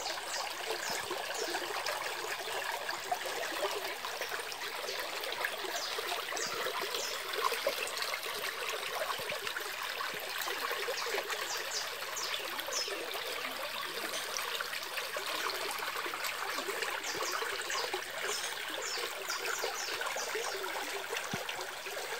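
Small shallow stream trickling steadily, its water running around the body of a cow lying in it.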